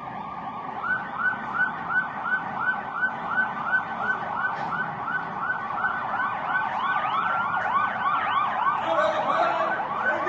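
Police vehicle sirens yelping in quick rising sweeps, about three a second. A second siren joins about two-thirds of the way through, with a slower wail and higher yelps over it.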